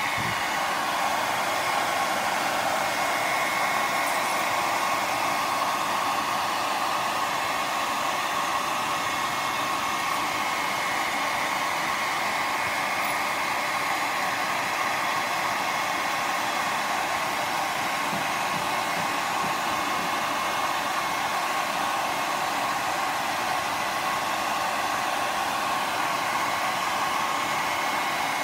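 Handheld hot-air blower running steadily: rushing air with a constant motor whine. It is heating the edge of a Kindle to soften the glue that holds the screen on.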